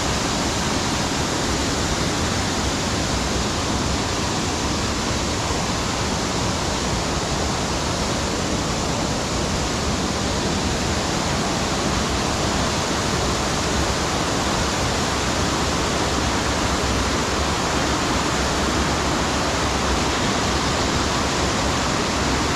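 Waterfall pouring: a steady, even rush of falling white water that does not change.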